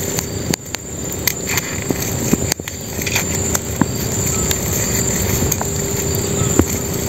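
Handling sounds of hands tying up a live crab with a cord strip: irregular small clicks and rustles over a steady background hiss.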